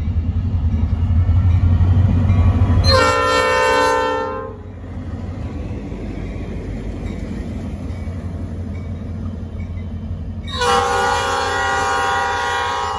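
Norfolk Southern diesel locomotive running past close by, its engine loudest in the first three seconds. It sounds its air horn as a chord: a short blast about three seconds in, and a longer one starting near the end that runs on past it.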